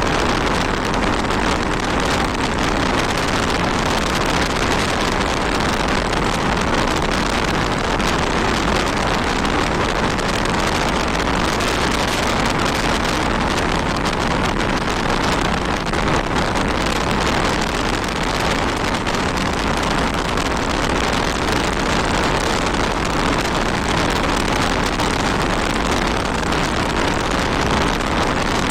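Honda 160 motorcycle ridden at road speed: its engine hum is largely covered by a steady rush of wind on the microphone.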